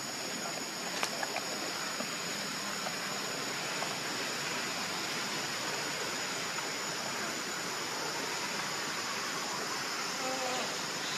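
Steady forest ambience: an even rushing hiss with a high, steady insect drone over it, and a few light clicks about a second in.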